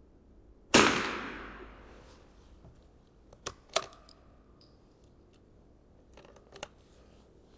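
.22 LR rifle shot: one sharp crack that rings out with a long decaying echo, followed a few seconds later by several short metallic clicks.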